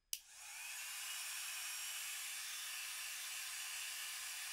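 Havells compact hair dryer switched on with a click. Its motor and fan spin up over about a second with a faint rising whine, then it runs steadily with the concentrator nozzle fitted, blowing a strong hiss of hot air.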